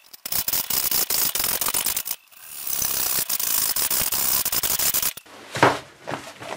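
A junior hacksaw with fine teeth rasps back and forth as it cuts a V-notch into the end of a thin metal tube held in a vise, in two spells of quick strokes with a short pause between. The sawing stops, and near the end comes a single knock as the saw is set down.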